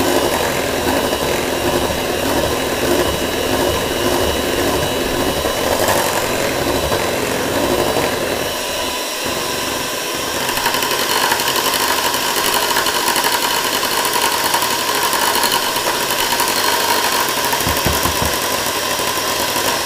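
Electric hand mixer running steadily, its beaters churning thick chocolate cake batter in a bowl. About halfway through the sound grows a little louder and brighter.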